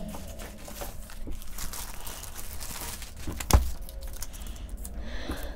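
Crinkling rustle of a graded comic slab being handled and covered, with one sharp knock about three and a half seconds in.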